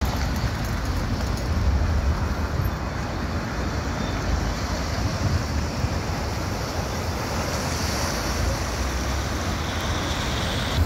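Steady rushing of a river in flood, fast muddy water churning in eddies below a bridge, mixed with an irregular low rumble of wind buffeting the microphone and road traffic passing on the bridge.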